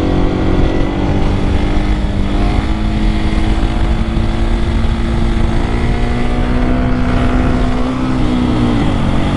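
Husqvarna 701 supermoto's single-cylinder engine held at steady revs through a wheelie, its pitch dropping near the end as the throttle eases off.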